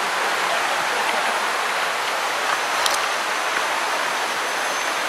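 Fast-flowing water rushing steadily, with a brief click about three seconds in.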